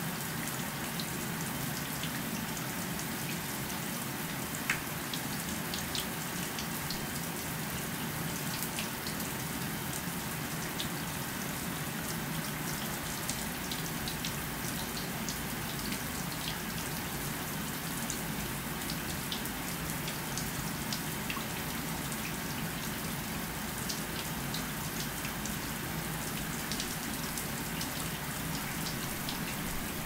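Bathroom shower running steadily: water spraying and splashing down, with scattered small drips and spatters.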